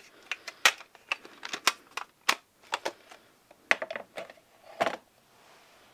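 Metal watercolor palette tin being handled and closed: a dozen or so sharp clicks and clacks as the hinged mixing flap and lid knock against the tin.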